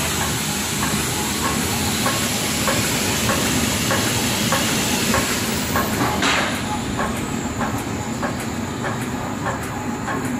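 Plastic bag making machine running: a regular clicking, a little under two a second, from its repeating sealing and cutting cycle, over a steady hiss and hum. A brief louder hiss comes about six seconds in.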